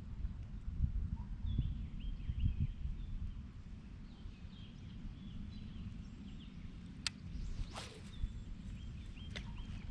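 Outdoor lakeside ambience: small birds chirping in short repeated notes over a steady low rumble, with two sharp clicks about seven to eight seconds in.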